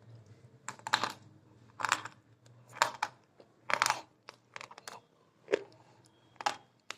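Crunchy food being bitten and chewed, with a sharp crunch roughly once a second.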